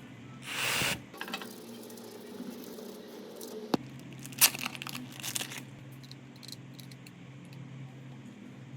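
Small parts and tools being handled during a phone repair: a brief rustle or tear about half a second in, then a handful of light clicks and taps a few seconds later.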